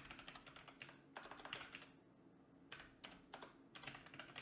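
Faint typing on a computer keyboard: several quick runs of keystrokes separated by short pauses.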